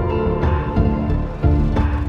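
Background music: sustained pitched notes over a steady low beat.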